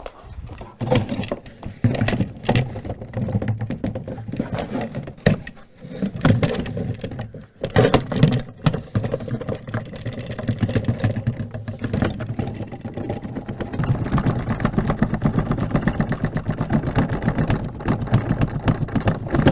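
A hand-made foley stand-in for an aircraft's propellers and motor vibration: a fast mechanical rattle, uneven and stop-start at first, then settling into a steady rapid buzz-rattle over the last few seconds.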